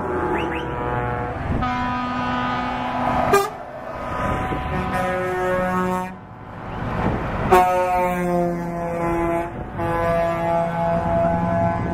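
Truck air horns sounding over the engines of trucks driving past. There are several long blasts, some holding one chord and some stepping between notes like a short tune.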